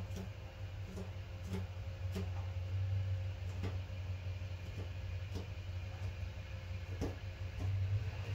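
A steady low hum with faint scattered clicks and knocks.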